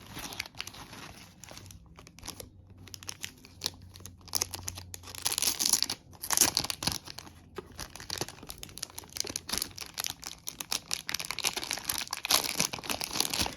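Paper packaging crinkling and rustling in handling as a small gift box is unwrapped and opened, in irregular bursts, loudest about halfway through and again near the end.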